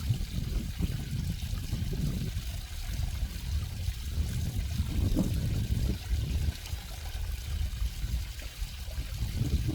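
Running water, steady and uneven, with a deep rumble underneath and a few brief gurgles about halfway through.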